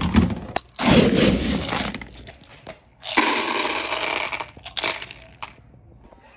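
Dry dog kibble scooped with a plastic cup from a plastic storage bin, then poured out rattling into a plastic slow-feeder bowl for about two seconds.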